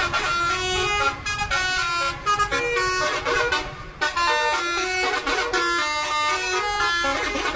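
Bus telolet horn, a multi-note air horn, playing a rapid tune of short stepped notes that jump up and down in pitch, with a few brief breaks between phrases.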